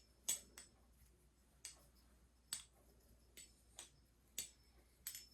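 Balisong (butterfly knife) being flipped: several sharp metallic clicks at uneven intervals as the handles and blade swing and knock together.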